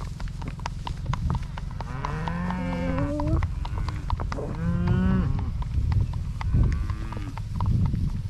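Cattle mooing: three drawn-out calls falling in pitch, the third short, over the steady clip-clop of horses' hooves walking.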